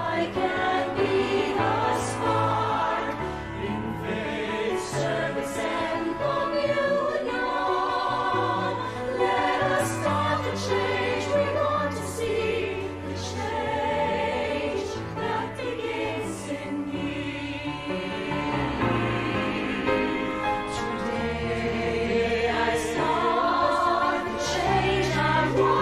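A song sung with instrumental backing, the singing wavering with vibrato over sustained bass notes. The words include 'Let us start the change we want to see' and 'Today I start the change I want to see'.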